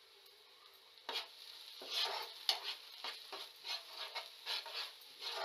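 Steel spoon stirring and scraping a thick frying masala paste around a non-stick frying pan. A run of quick scrapes, about two or three a second, starts about a second in.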